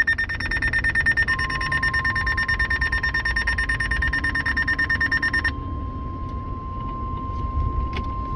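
NOAA Weather Radio's 1050 Hz warning alarm tone, one steady beep starting about a second in, which announces that an urgent warning message follows. Under it a weather radio receiver's electronic alarm beeps rapidly, stopping about five and a half seconds in and starting again at the very end.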